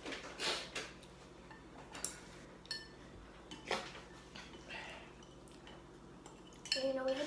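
Chopsticks clicking and scraping against ceramic noodle bowls as people eat, a few sharp knocks and one short ringing clink, with soft sniffs and mouth noises in between.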